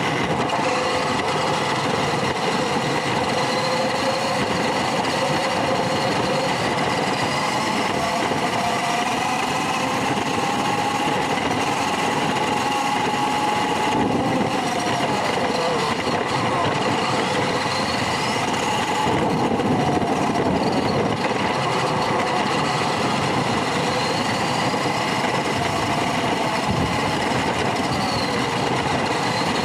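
Small electric motor and gearbox of an RC pickup truck running, its whine rising and falling as the speed changes, over steady rattling and rolling noise.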